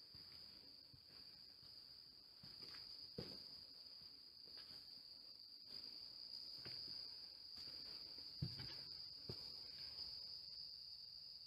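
Faint, steady high-pitched trill of crickets, with a few soft thuds of footsteps on a concrete floor.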